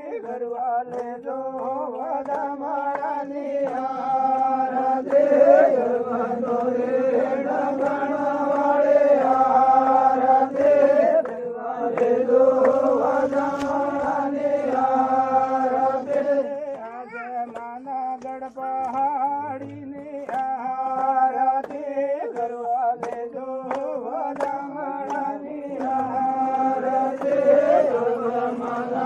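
Devotional bhajan sung in a chanting style: voices singing an aarti in long held notes, phrase after phrase.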